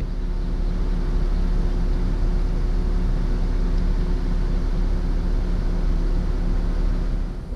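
Truck driving along, its engine and road noise making a steady low drone with a constant hum.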